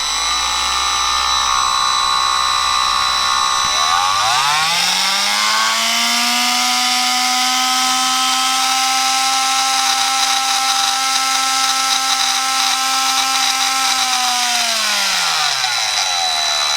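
Milwaukee M12 brushed oscillating multi-tool (2426-20) running continuously. It starts at low speed, rises over about two seconds to a steady high-pitched whine, holds there, then winds back down to low speed near the end.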